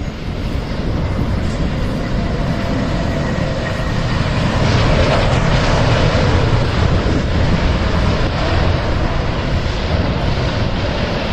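Emirates Airbus A380 rolling out just after touchdown, the roar of its jet engines swelling about four seconds in and then staying loud.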